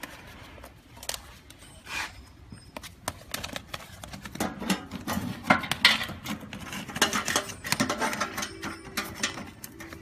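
Crinkling of a flexible aluminium foil duct and irregular metal clicks as the duct is worked onto a blower outlet and a hose clamp is tightened with a screwdriver.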